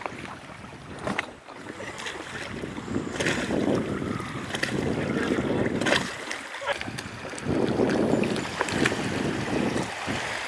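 Wind gusting on the microphone over small waves splashing at the shoreline around a fishing kayak being launched, with several sharp knocks.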